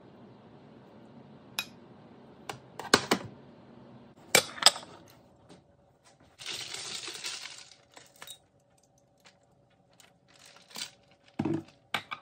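Glassware clinking against a granite countertop as a glass serving bowl and drinking glass are set down, sharp clinks coming in small clusters. About six seconds in there is a short noisy scrape lasting about a second.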